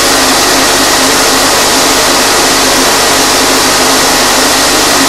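Impeller of a Coanda-effect disk aircraft model running fast: a loud, steady rush of blown air with a faint steady hum.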